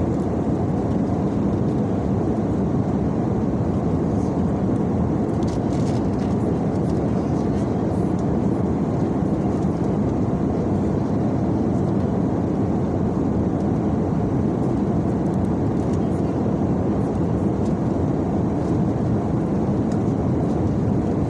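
Steady cabin noise of a passenger airliner, an even rumble that does not change.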